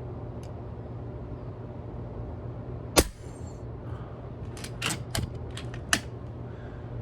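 A moderated .25 cal FX Crown PCP air rifle fires once, a single sharp crack about three seconds in. A quick run of smaller mechanical clicks and clacks follows over the next few seconds, ending in one louder click.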